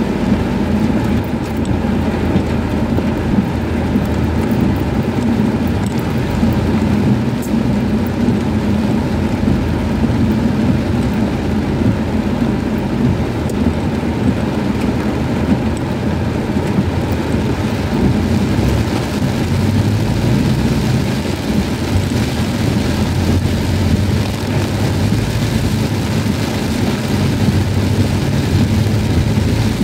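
Heavy rain beating on a car's roof and windshield, heard from inside the cabin, as a steady loud hiss. The car's engine and road noise hum steadily underneath.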